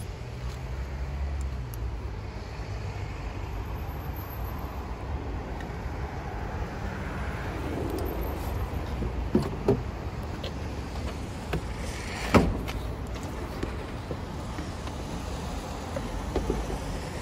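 A steady low outdoor rumble, with a few sharp knocks and clicks about halfway through, the loudest a single clunk about two-thirds of the way in, as the charger's heavy plug and cable are handled.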